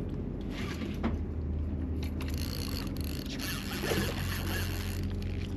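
Spinning reel being cranked as a hooked fish splashes at the surface about four seconds in, over a steady low engine drone.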